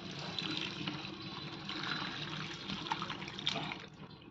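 Mutton stock being poured from a pot through a plastic colander into a basin: a steady splashing pour. It tapers off near the end, with a few light knocks as it does.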